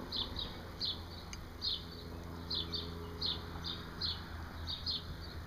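A small bird chirping over and over: short high chirps about twice a second, often in pairs, over a steady low hum. One faint click about a second in.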